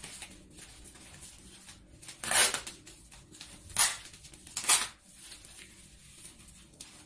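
Three short rasps of clear adhesive tape being pulled off its roll to bind the gathered centre of a paper fan, with paper rustling between them.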